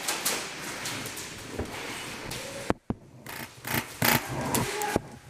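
Scuffing and rustling of movement on a concrete floor, broken by a few separate sharp clacks. Two clacks come close together near the middle, followed by a brief drop to near silence, and more come singly toward the end.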